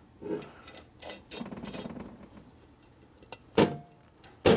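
Steel main bearing race being worked in and out of a tight roller bearing in a Harley-Davidson Milwaukee-Eight crankcase: small metal clicks and scrapes, then two sharper metal knocks about a second apart near the end. The races are oversized for a zero-clearance fit, where they are meant to be loose.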